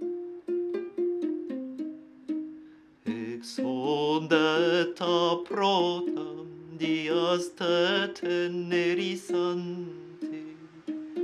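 A lyre's strings plucked in a short repeating figure in an Ethiopian pentatonic scale. About three seconds in, a man's voice sings over it with a wide vibrato for some six seconds, then the lyre goes on alone.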